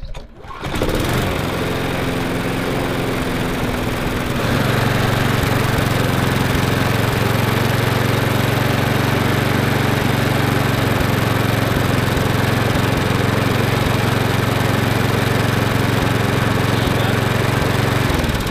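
Mountfield petrol lawnmower engine starting and running steadily, its speed stepping up about four seconds in, then cut off abruptly near the end. It is burning off oil that flooded the inlet when the mower was tipped on its side.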